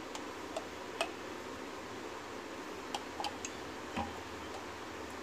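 Light clicks and taps of a metal spoon against a mayonnaise jar and a glass bowl as mayonnaise is scooped out and dropped in, a few scattered ticks over a steady hiss.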